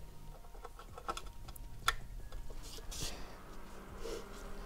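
Scattered small clicks and taps of connectors and cables being handled as a radio's power lead is plugged into the output of a DIY buck-boost power supply. A faint steady hum comes in during the second half.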